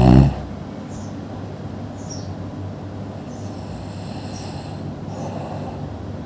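A person snoring: a loud snore ends about a third of a second in, followed by a quieter, steady breathing stretch with short high squeaks now and then and a longer high whistle around the middle.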